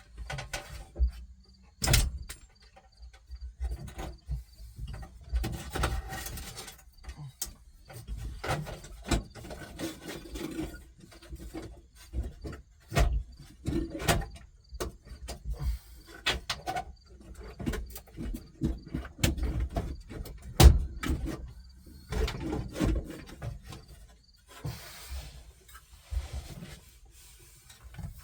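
Irregular knocks, clicks and rubbing from hands working behind a truck's dashboard to unplug and pull out the old AM radio. There are sharp knocks about 2 s in, around 13 to 14 s, and a loudest one about 20 s in.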